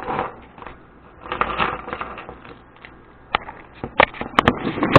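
Keychain quick-release clip being handled and worked: rustling handling noise, then several sharp clicks in the second half.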